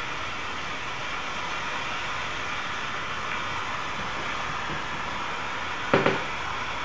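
Steady rushing of a fast-flowing river. About six seconds in, a short, loud double sound cuts in briefly.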